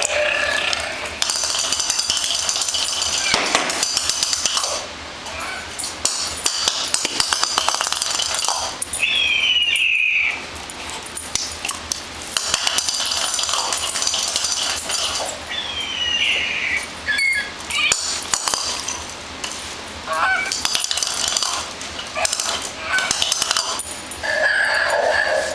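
Babble Ball sound-making dog toy playing its recorded voices and electronic sound effects in short bursts as a puppy carries and bats it, including two falling electronic whistles.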